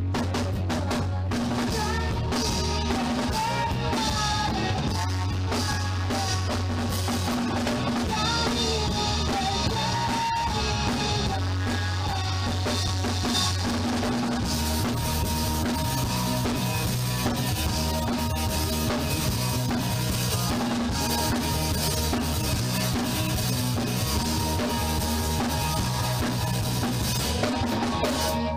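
Rock band playing a song at rehearsal, a drum kit with bass drum driving the full band, recorded at poor quality. The cymbals get busier about halfway through, and just before the end the band stops, leaving a ringing tone.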